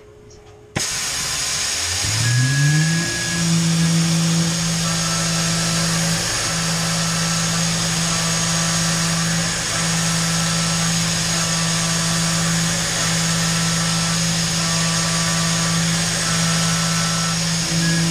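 Tormach 440 CNC milling machine running a contouring and facing program: a loud hiss of coolant spray starts suddenly about a second in, then the spindle motor whines up in pitch and settles into a steady tone as the end mill cuts the block. The spindle tone dips briefly a few times, and short higher tones come and go.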